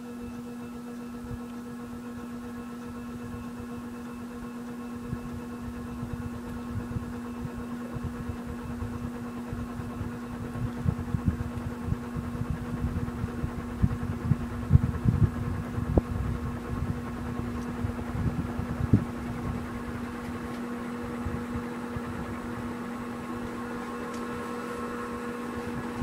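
Dayton 4C854 (Leading Edge Hi-Tech II) 56-inch commercial ceiling fan running, its motor giving a steady electrical hum with fainter higher whine tones. Irregular low rumbling thumps come and go through the middle stretch.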